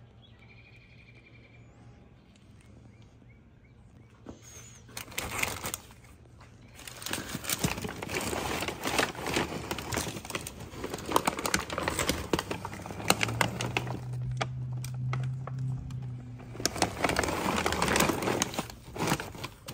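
Packaging being opened and handled: dense, irregular rustling and crinkling of wrapping and box material, starting a few seconds in after a quiet stretch.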